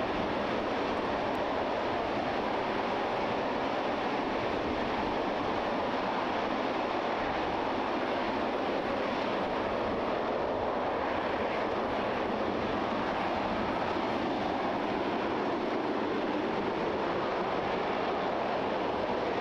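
RS-25 liquid-hydrogen/liquid-oxygen rocket engine firing steadily in a hot-fire test: a continuous, even rush of noise that holds one level throughout.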